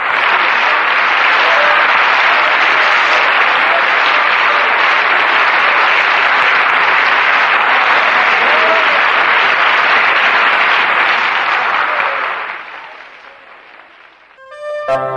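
Crowd applauding steadily, fading away about twelve seconds in. Brass music starts just at the end.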